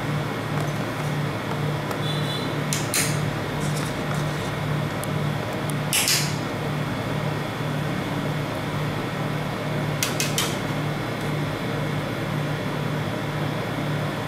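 Steady hum of a rolled-ice-cream machine's refrigerated cold plate, with a low drone throbbing about twice a second. Over it come a few short scrapes of a metal spatula on the frozen plate: one about three seconds in, the loudest about six seconds in, and a quick pair about ten seconds in.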